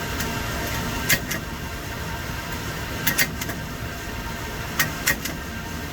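A punch-down tool snapping as it seats wires into the IDC contacts of a Cat5e patch panel: three sharp double clicks about two seconds apart, over a steady background hum.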